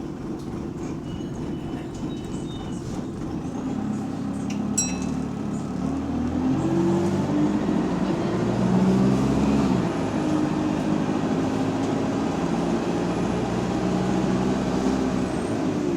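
Bus engine heard from on board as the bus pulls away: the engine note grows louder and rises in pitch, drops back at a gear change about ten seconds in, then runs steadily. A single sharp click about five seconds in.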